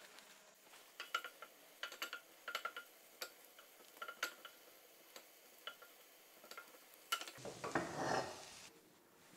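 A wooden spatula stirs wild asparagus tips in butter in a nonstick frying pan, making a run of light, irregular clicks and knocks against the pan. Near the end there is a louder rush of noise lasting about a second.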